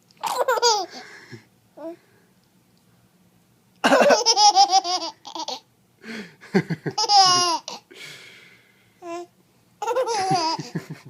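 Baby laughing in four bursts of rapid, pulsing giggles with short pauses between, set off by a man coughing.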